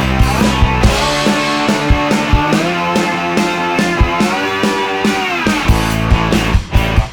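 Background rock music: sustained guitar notes with a steady drum beat.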